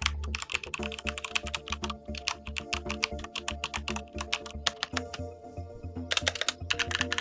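Fast typing on a Thermaltake Level 20 RGB mechanical keyboard with linear Cherry MX Speed Silver switches: a dense run of key clacks with a short pause about five seconds in.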